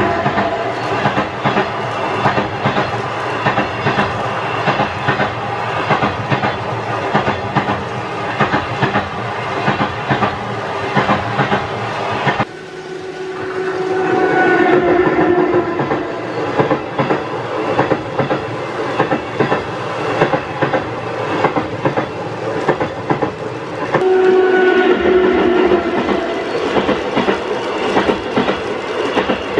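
A train running with a rhythmic clickety-clack of wheels over rail joints. The sound changes abruptly about twelve seconds in, and a held tone comes through twice in the second half.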